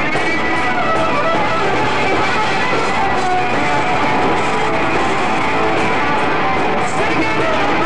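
Live rock band playing at full volume, with electric guitar out front.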